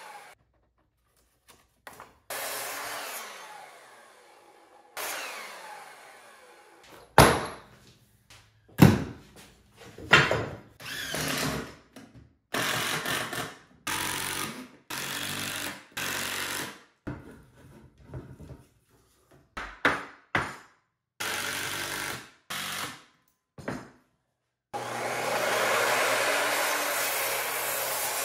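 Edited run of woodworking power-tool sounds, broken by abrupt silences. A sliding miter saw cuts 2x4 lumber, with two sharp knocks about seven and nine seconds in. Then a cordless drill drives screws into a 2x4 frame in short bursts, and near the end the miter saw makes a long steady cut.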